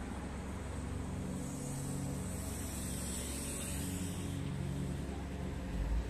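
City street traffic: a steady drone of vehicle engines, with a high hiss that swells and fades again in the middle.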